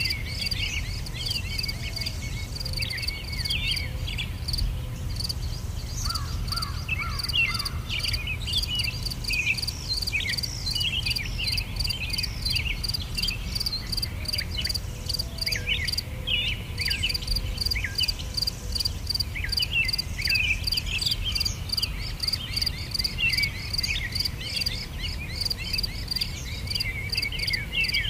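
Outdoor nature ambience: an insect calling in steady, even pulses, with many small birds chirping in short falling notes over a low steady rumble.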